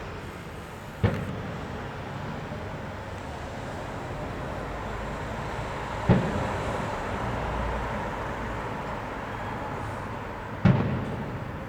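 Fireworks display: three loud shell bursts about five seconds apart, each a sharp bang with a rumbling echo dying away, over a steady background din.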